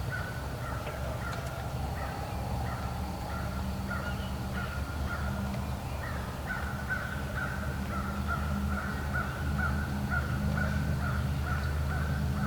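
Wild turkeys calling: a string of short, repeated notes that turns into a steadier, faster run from about halfway through.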